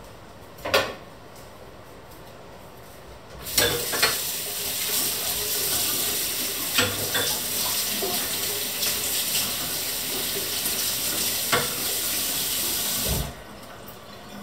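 A kitchen tap runs into a stainless-steel sink for about ten seconds, starting and stopping abruptly, with a few sharp clinks of metal utensils against the sink. A single knock comes about a second in, before the water starts.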